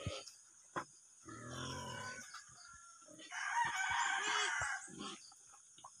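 A rooster crowing once, starting about three seconds in and lasting a second and a half. A shorter, lower call comes about a second before it, with a few faint clicks.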